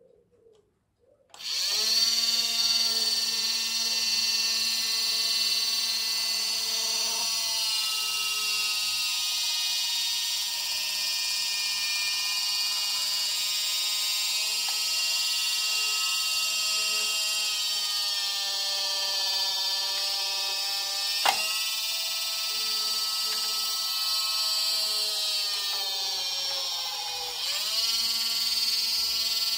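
Small electric motor and plastic reduction gearbox of a Chad Valley Mighty X-cavator toy excavator running the arm cams, a steady whine with gear hum that starts about a second and a half in. There is a single sharp click about two-thirds through, and the pitch briefly sags and recovers near the end.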